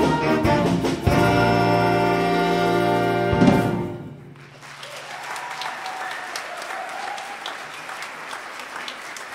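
A high school jazz big band of saxophones, brass and rhythm section plays a held final chord. The chord ends with an accented hit about three and a half seconds in and cuts off, and audience applause follows.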